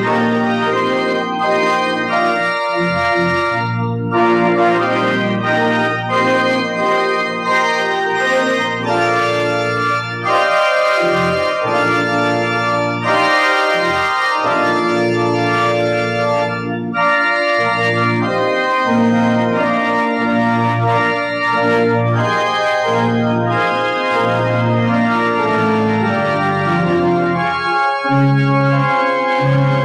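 Organ playing the closing postlude of a church service: sustained chords over held bass notes, the harmony changing every second or two.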